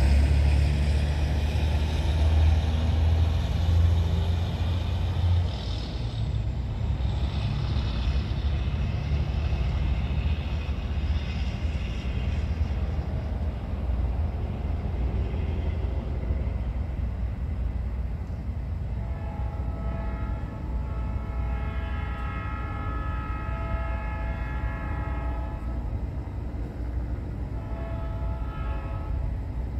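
Freight train's diesel locomotive approaching with a heavy low rumble. About two-thirds of the way through it sounds its horn in one long blast, then gives a short blast near the end.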